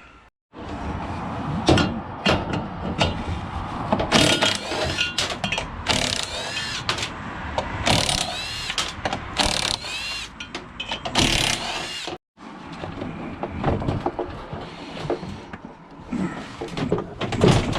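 Scrap metal being handled and worked with hand tools: clanking knocks and impacts with squealing scrapes of metal on metal in the middle stretch, broken by two abrupt cuts.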